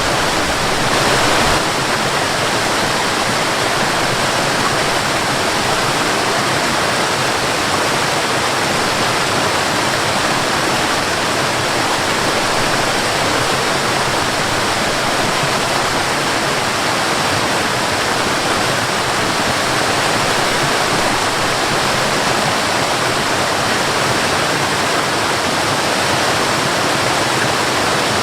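Waterfall: falling water making a steady, dense rushing noise, briefly a little louder about a second in.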